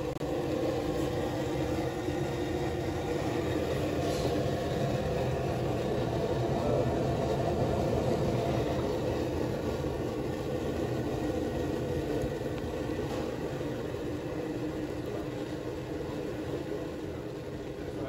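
Wolf rangetop wok burner running at high heat: the gas flame makes a steady rushing sound that holds level throughout.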